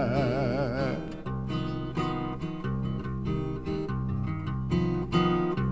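Music: a held sung note with vibrato that ends about a second in, followed by acoustic guitars plucking chords in a short instrumental passage of a Brazilian song.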